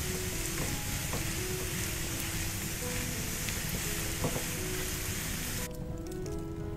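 Sliced onions sizzling as they fry in oil in a nonstick pan, stirred with a spatula, with a few faint taps against the pan. The sizzle cuts off suddenly near the end.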